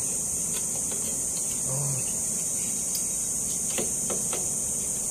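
Steady high-pitched drone of insects, with two faint metallic clicks about four seconds in as pliers work a drum-brake shoe retaining spring loose.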